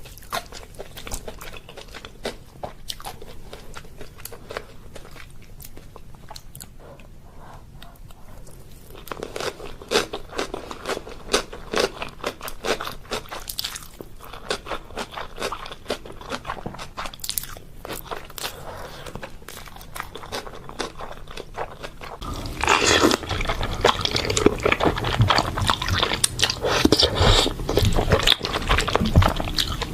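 Close-miked eating sounds: a person chewing and biting, with many sharp crunches and wet mouth clicks, growing louder and busier about two-thirds of the way through.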